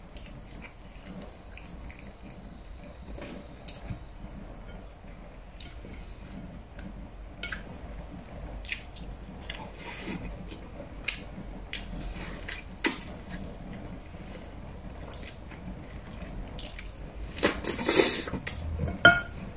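Wet mouth sounds of a man eating tender braised pork and rice with his fingers: scattered lip smacks and clicks as he chews, with one louder, longer smack near the end as he sucks food off his fingers.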